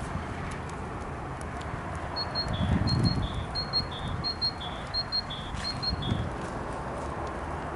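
A songbird repeating a high two-note phrase, a higher note then a lower one, about seven times in the middle of the clip. Underneath is a steady outdoor hiss with scattered faint crackles and a couple of low rumbles.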